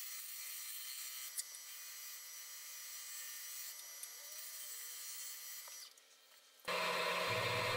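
A turning gouge cutting the spinning ambrosia maple bowl blank on a wood lathe, a steady hissing cut. The cut stops about six seconds in, and soon after a louder, deeper steady hum starts.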